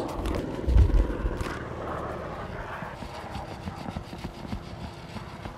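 A round mesh bait riddle full of worms being shaken, soil and grit rattling through the mesh and pattering onto the ground, with a dull knock about a second in.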